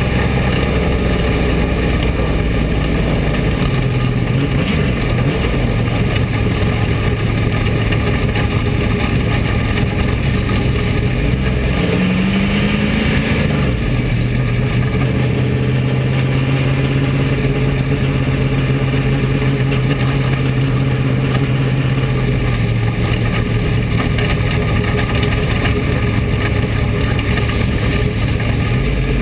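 Bomber dirt track race car's engine heard from inside the car, running at a steady, even pitch with one short rise in revs around twelve seconds in, over wind and road noise.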